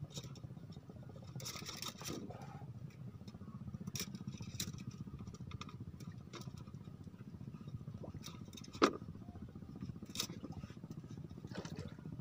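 A steady low engine hum runs throughout. Short clicks and knocks come and go over it as fishing rods and line are handled on a bamboo raft, with one sharp knock about nine seconds in.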